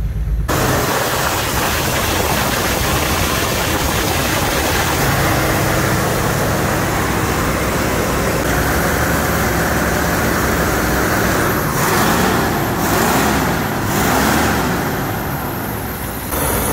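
An old carbureted V8 engine running at idle, rising and falling in speed twice near the end, as its ignition timing is adjusted. The engine has low compression, which the mechanics put down to gummed-up, sticking piston rings.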